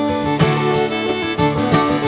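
Background music: an instrumental track of plucked acoustic guitar with a steady rhythm.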